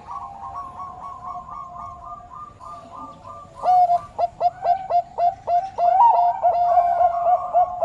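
Bangkok turtledove cooing: a fast run of short, repeated coo notes, soft at first, then much louder from about halfway through, at roughly three to four notes a second.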